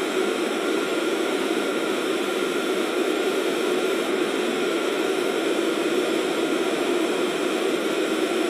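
Busy street ambience: a steady, even wash of noise with no single horn, voice or other event standing out.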